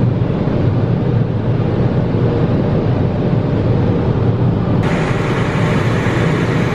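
Automatic car wash heard from inside the car: water and soap spraying onto the windshield and body with a steady, loud rushing noise. About five seconds in it turns suddenly hissier and brighter.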